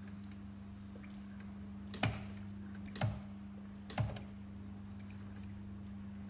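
Three sharp knocks about a second apart over a steady low electrical hum.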